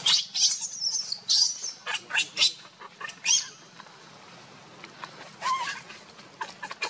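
Baby macaque screaming in distress while held down by its mother: a run of loud, high-pitched shrieks that stop after about three and a half seconds, then one shorter, lower cry about five and a half seconds in.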